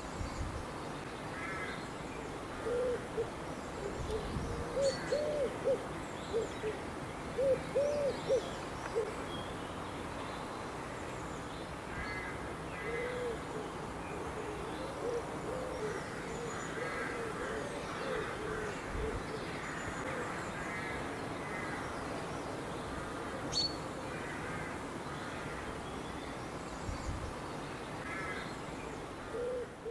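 Birds calling in open farmland: a low cooing call repeated in short phrases, with fainter harsh, cawing calls between.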